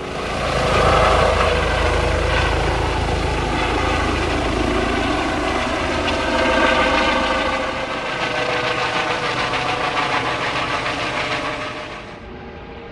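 Air ambulance helicopter flying overhead: loud, steady rotor and engine noise with a deep rumble, dropping away sharply near the end.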